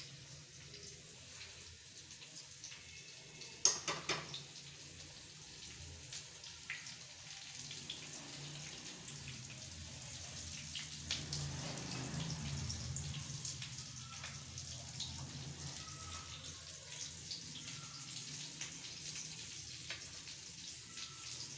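Faint background noise with many small scattered ticks over a low steady hum, and a short burst of sharp clicks about four seconds in.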